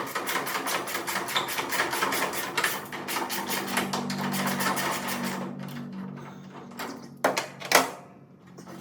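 Hand ratchet wrench clicking rapidly as a fastener is turned by hand in place of an impact wrench, then two sharp metal knocks close together near the end.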